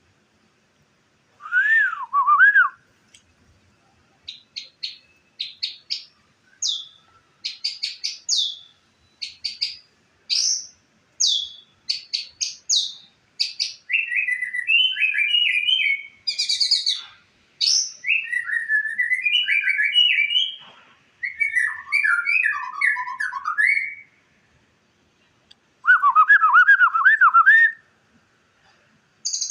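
White-rumped shama (murai batu) singing: a varied song of clear whistles that rise and fall, runs of short sharp high notes, and long rapid warbling phrases, with brief pauses between phrases.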